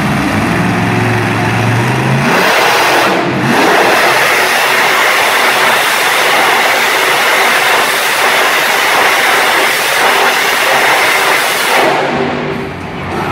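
Max-D monster truck's engine running at low revs for about two seconds, then held at high revs for about ten seconds as the truck spins donuts in the dirt, easing off near the end.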